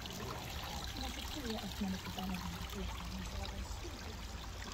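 Water trickling steadily over the cobbles and rock of a stone-lined artificial stream, with faint voices in the background.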